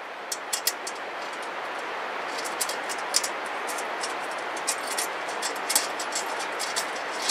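Small, sharp metal clicks and taps at irregular intervals as the bolts and parts of a Weber Smokey Joe grill are fitted by hand, over a steady rushing background noise.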